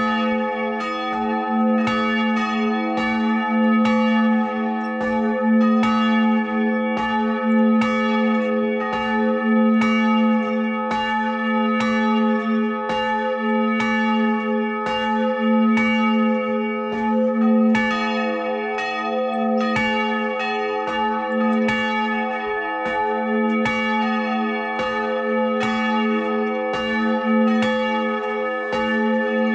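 Two hand-swung church bells ringing together from close by in the belfry: St. Barbara's 700 kg bell, cast in 1614 and tuned to a1, and the smaller St. Francis bell from 2016, tuned to e2. Their clapper strokes overlap at about two a second over a continuous ringing hum.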